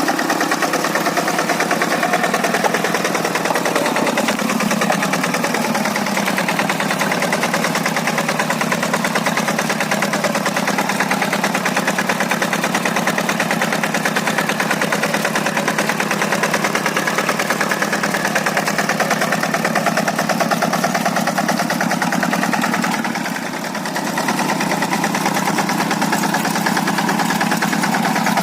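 Quick G100 hand tractor's Kubota single-cylinder diesel engine running steadily while working a paddy field. Its pitch drops a few seconds in, and its level dips briefly near the end.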